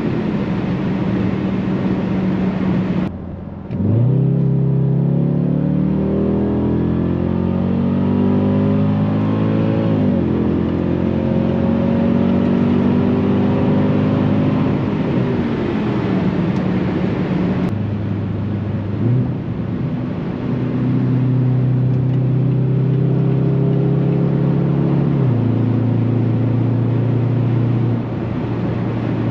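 Jaguar XFR's supercharged 5.0-litre V8 on the move. The sound drops briefly about three seconds in, then the engine note rises steadily as the car accelerates, falls away past the middle, and runs at a steady pitch toward the end.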